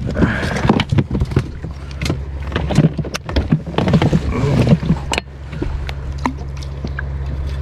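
Knocks and clatter of handling aboard an inflatable boat with an aluminium floor: a freshly caught fish being put into a plastic cooler and fishing gear picked up off the floor. From about five seconds in, the handling sounds fade and a steady low hum is left.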